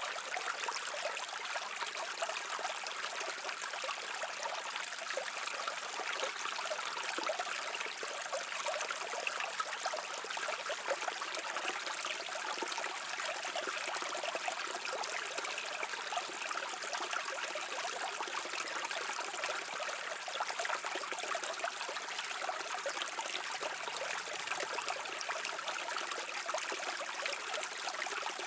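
Shallow stream of water flowing and trickling over stones, a steady babbling without pauses or single loud events.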